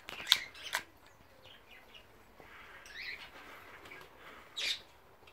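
Two sharp clicks in the first second as a Glock-style BB pistol is handled in the hands, then faint high bird chirps, with a brief sharper chirp near the end.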